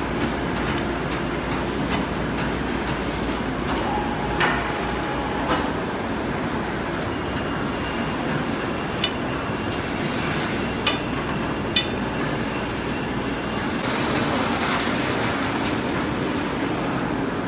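Steady noise of factory machinery running, with about five short, sharp knocks or clinks scattered through it, the sharpest between about nine and twelve seconds in.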